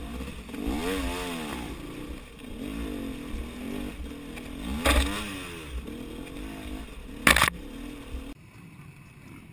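KTM 250 XC two-stroke dirt bike engine revving up and falling back again and again, blipped through the ruts. A little past seven seconds in there is a loud, sharp clatter, and shortly after, the engine sound cuts off abruptly to a much quieter background.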